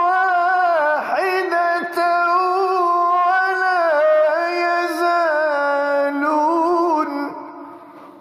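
A male Quran reciter's voice in melodic, drawn-out recitation, holding long notes with ornamented turns and slow bends in pitch. The phrase trails off and fades about seven seconds in.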